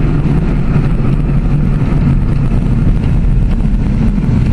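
Steady low rumble inside the cabin of a slowly driven car: the freshly rebuilt Chrysler 2.7 V6 running gently under light load while still cold, with tyre and road noise.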